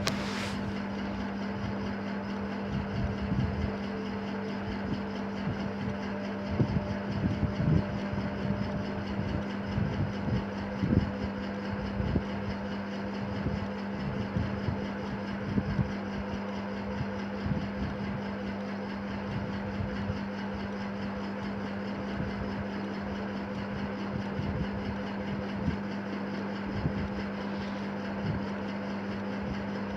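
A steady low hum over an even background noise, with faint irregular low knocks now and then.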